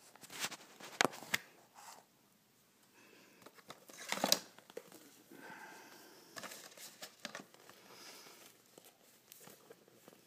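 Cellophane wrap and cardboard of a cigarette carton crinkling and rustling as it is handled by hand. A few sharp crackles come in the first second and a half and a louder one about four seconds in, then softer rustling.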